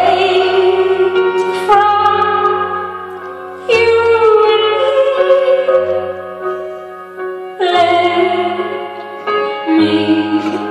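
A woman singing a slow ballad live, accompanying herself on a keyboard. Chords are struck every two to four seconds and left to ring and fade under her voice.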